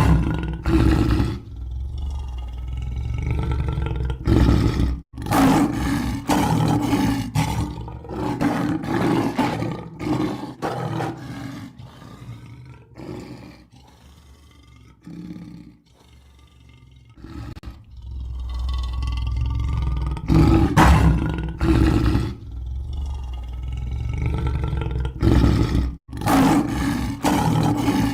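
Lion roaring in repeated bouts of deep roars and grunts, dying down to quieter grunts in the middle and building back up later. The sound cuts out abruptly for an instant about five seconds in and again near the end.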